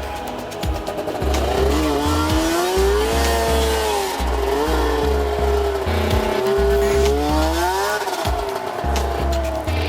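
Snowmobile engine revving up and down again and again, its pitch rising and falling every second or two, with background music underneath.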